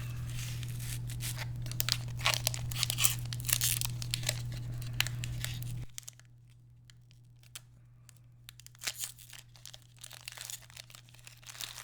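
Foil Pokémon booster pack wrapper being torn open and crinkled by hand, with dense sharp crinkles in the first half and sparser ones after. A steady low hum underneath cuts off suddenly about six seconds in.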